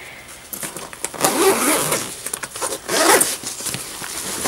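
The zipper of a nylon SwissGear toiletry bag being pulled open, a rasping zip in two pulls: a longer one about a second in and a shorter one about three seconds in.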